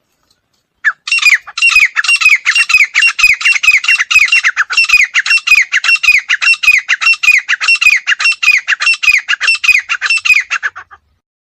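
Female grey francolin (teetar) calling: a fast, even run of harsh notes, about four a second, each dropping in pitch. The run starts about a second in and stops shortly before the end.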